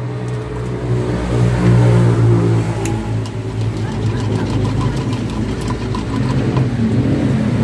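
A motor vehicle engine running steadily at low revs, growing a little louder between about one and two and a half seconds in.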